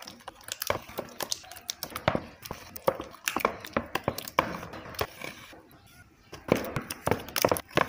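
Irregular small clicks and taps of plastic cosmetic tubes and caps being handled and squeezed over a plastic mixing bowl.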